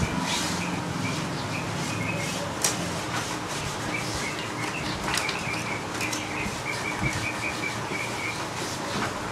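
Scattered clicks and rustles of hands handling the parts of an opened inkjet printer, over a run of small, quick chirps from a bird in the background.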